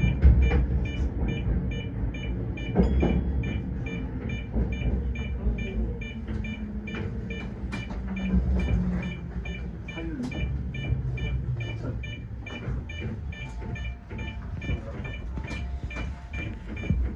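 Tokyo Metro 05 series electric train slowing as it pulls into the station: low wheel-on-rail rumble with scattered clicks over the track, and a motor whine that falls in pitch as the train brakes. A faint high pulsing sound repeats about twice a second.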